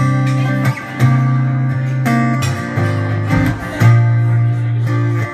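Acoustic guitar strumming chords, the strokes coming about once a second with the chords ringing on between them: an instrumental passage with no singing.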